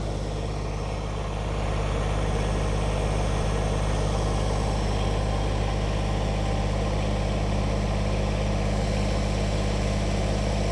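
Tractor engine running steadily, its level picking up slightly about a second and a half in as the raised trailer is lowered.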